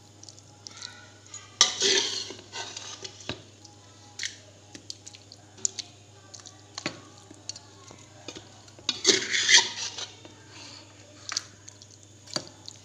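A metal spoon scooping thick beef masala and spreading it over rice in a hot pot: scattered clinks and scrapes of the spoon against the pots, with two louder spells of scraping, about two seconds in and about nine seconds in. A faint steady hum underneath.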